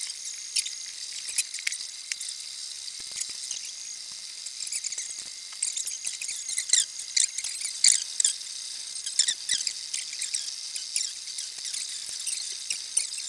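MakerBot Replicator 2 3D printer's stepper motors chirping as the extruder head moves, a rapid string of short high-pitched notes that keep changing pitch, over a faint steady high whine.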